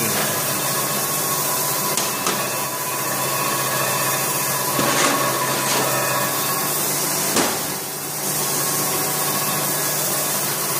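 Steady hiss with a low hum of workshop background noise, with a few light metallic knocks and clicks as a camshaft and caliper are handled on a steel bench; the clearest knocks come about five and seven seconds in.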